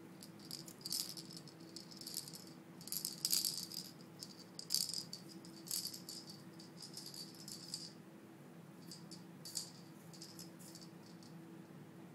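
A kitten batting a rattle toy about: irregular clusters of quick rattling through most of the first eight seconds, then a few scattered rattles near the end, over a faint steady low hum.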